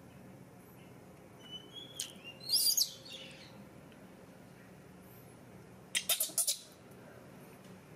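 Baby monkeys giving short high-pitched squeaks: one squeal about two and a half seconds in, and a quick run of about four sharp squeaks about six seconds in.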